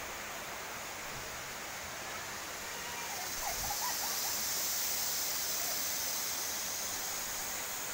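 Steady rush of a rocky stream flowing, growing louder about three seconds in.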